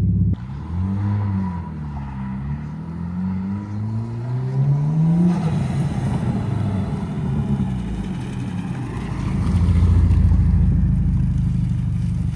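Car engine revving. Its pitch rises and falls twice, then climbs steadily for a few seconds, after which it runs on with a rougher, noisier sound that gets louder about ten seconds in.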